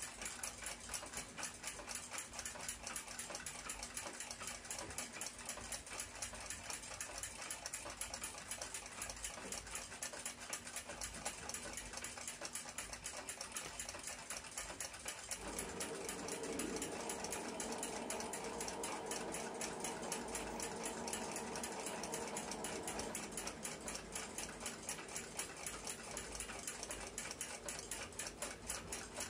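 A clock ticking fast and evenly. A steady hum joins about halfway through and stops again some eight seconds later.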